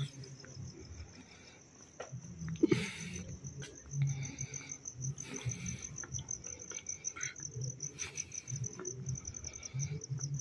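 Crickets chirping in a steady high trill, with low irregular thumps of footsteps on paving and two brief rustling bursts.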